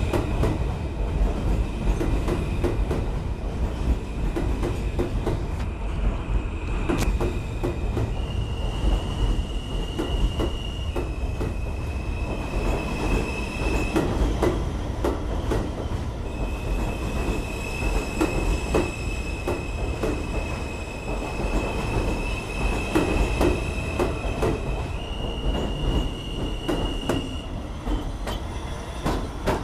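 R160 subway train pulling out of the station, its cars rumbling past with a steady run of wheel clicks over the rail joints and a high steady tone that switches between two pitches every few seconds. It fades slightly near the end as the last car leaves.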